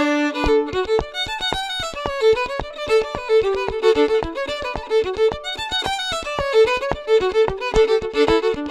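Fiddle playing a lively tune of quick, short notes.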